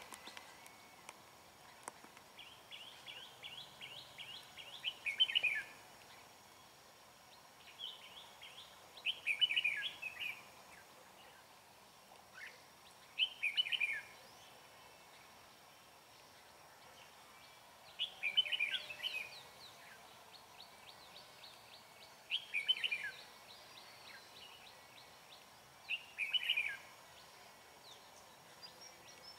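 Red-whiskered bulbuls singing: short phrases of quick, bright notes, repeated every four to five seconds.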